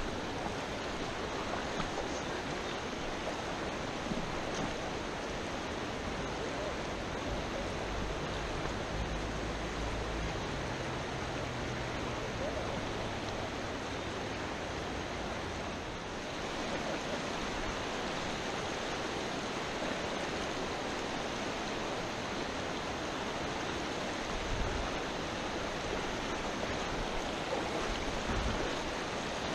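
Shallow river rushing over a stony bed: a steady wash of water noise, heard close to the water's surface.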